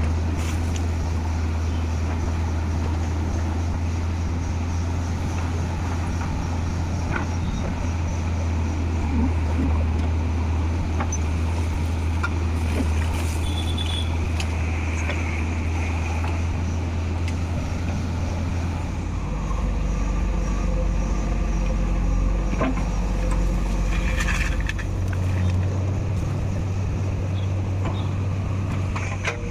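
Diesel engine of a JCB 3DX Eco backhoe loader running steadily under work. Its note drops lower about two-thirds of the way through and comes back up a few seconds later. Occasional knocks sound over it.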